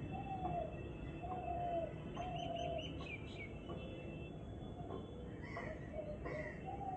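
Birds calling in the background: a short, slightly falling call repeated about once a second, a brief high trill near the middle, then higher chirps toward the end. Faint scrapes of a hand peeler on hog plums come in between.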